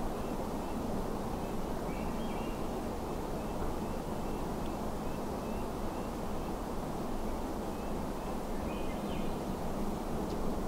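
Faint bird chirps, short high notes repeated every half second or so, with a brief flurry of notes about two seconds in and another near the end. Under them is a steady rushing background noise in a conifer forest.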